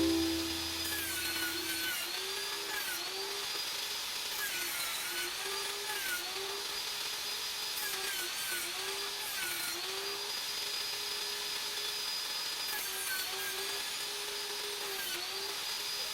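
Electric saw ripping wood into kindling: a steady motor whine that dips in pitch and recovers again and again as the blade takes load in the cut.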